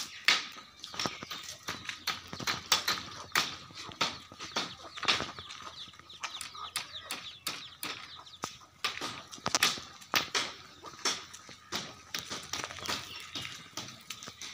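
Birds chirping: many short, sharp chirps in a quick, irregular stream.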